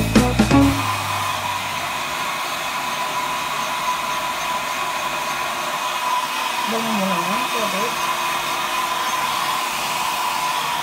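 Handheld electric hair dryer running steadily as it blows a dog's coat dry: an even rush of air with a thin, steady whine.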